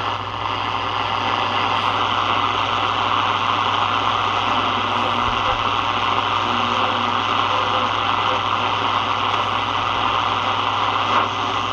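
Steady shortwave radio static hissing from a Sony ICF-7601 portable receiver's speaker as it is tuned across the Shortwave 2 band between stations, with a steady low hum underneath.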